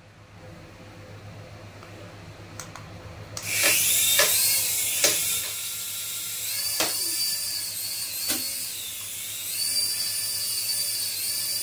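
Toy RC helicopter's small electric motors spinning up about three and a half seconds in: a high-pitched whine that rises and falls with the throttle, with several sharp taps as the little helicopter touches the floor and wall.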